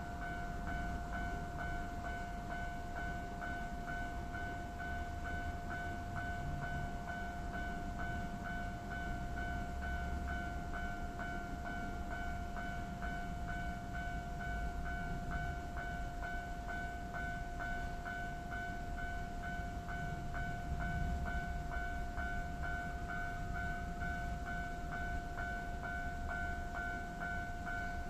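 Japanese railway level-crossing warning bell ringing continuously in a fast, even beat. Under it is the low rumble of Keio Line electric trains running past the closed crossing, swelling twice.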